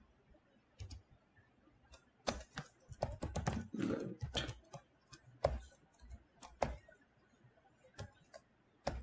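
Typing on a computer keyboard: a quick run of keystrokes from about two seconds in, then a few single key presses spaced about a second apart.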